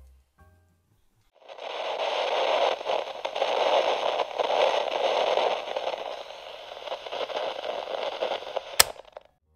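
Crackling static hiss, like a detuned TV or radio, starting about a second and a half in and ending with a sharp click just before it cuts off near the end.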